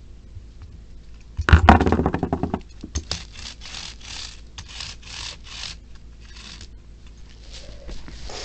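A plastic Plarail toy train being handled: a loud clatter about a second and a half in, then a run of short scrapes, a few a second.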